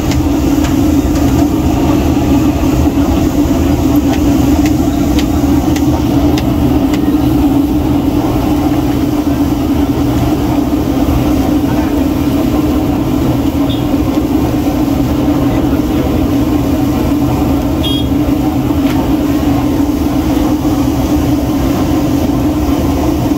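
Fish deep-frying in large woks of hot oil, bubbling and sizzling, over a steady low roar that does not change.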